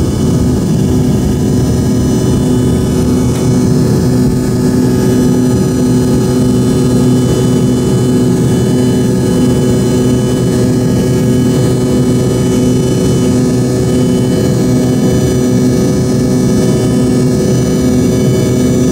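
Rolls-Royce AE 3007 turbofan of an Embraer 145 at takeoff and climb thrust, heard from the cabin right beside the rear-mounted engine: a loud, steady roar with several steady whining tones over it.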